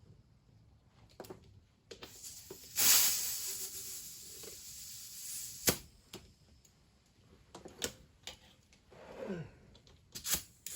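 Air hissing as a tubed tyre is inflated toward 40 psi to seat the bead, in a loud burst a little under 3 s in that tails off, with several sharp clicks.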